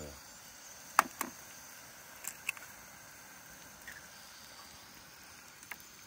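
A sharp click about a second in and a second one just after, then a few lighter taps, from eggs and a clear plastic egg box being handled on a camp table.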